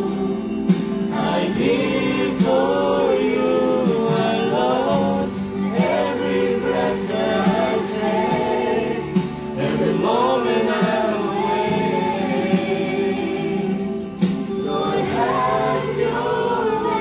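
Congregation singing a Christian worship song together, many voices carrying a slow melody with held notes.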